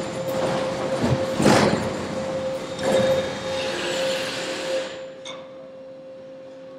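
Seismic shake table shaking a suspended ceiling grid and panels: loud rattling and clattering over a steady tone, surging twice, then stopping about five seconds in and leaving a low hum. This is the test run at the 1.75 g minimum acceptance level.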